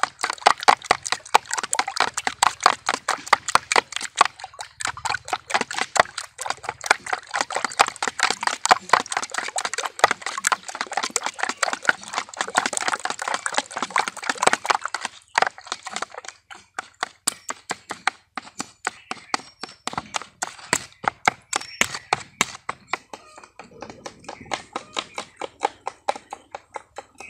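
Metal spoon beating raw eggs in a plastic bowl, clicking against the bowl in a fast, even rhythm of several strokes a second. About halfway through the strokes become sparser and a little quieter.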